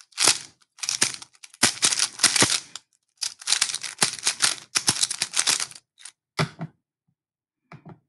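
Plastic Rubik's-type speed cube turned rapidly by hand: fast runs of clacking as the layers snap round, with short pauses between runs. The turning stops about six seconds in.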